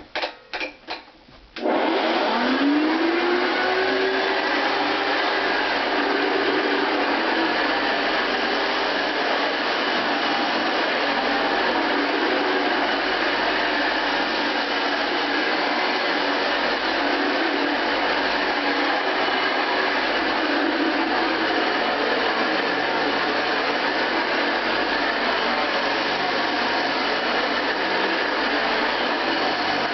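Hoover Convertible Model 589 upright vacuum, an all-metal mid-1960s machine, started after a few clicks: its motor spins up with a rising whine over about two seconds, then runs steadily on the low carpet setting.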